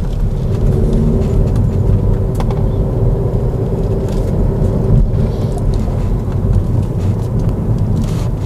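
Kia Niro hybrid driving slowly, heard inside the cabin: a steady low rumble of tyres and drivetrain, with a constant hum through the first half that then fades.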